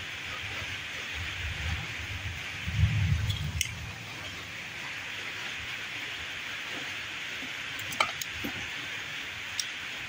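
Handling noise from joining e-bike wiring by hand: two low bumps in the first three seconds and a few small sharp clicks later, over a steady hiss.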